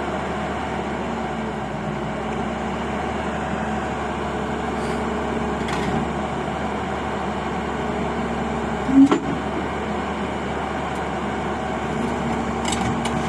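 Heavy diesel engine running steadily with an even hum, with one sharp metallic knock about nine seconds in.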